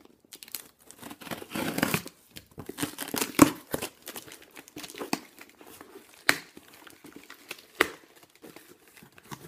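A cardboard shipping box being opened by hand: packing tape tearing and packaging crinkling, with three sharp snaps along the way.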